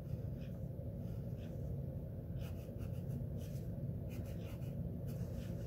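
Wooden pencil scratching on a small piece of paper in short, irregular strokes as a drawing is sketched, over a low steady hum.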